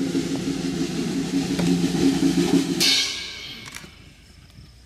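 Live percussion music with a held low note, ending about three seconds in with a cymbal crash that rings and fades.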